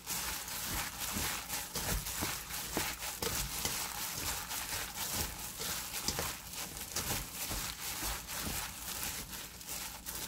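Gloved hands kneading and tossing seasoned dried radish strips and pepper leaves in a stainless steel bowl. The thin plastic gloves give a constant irregular crinkling and rustling, with many small soft clicks.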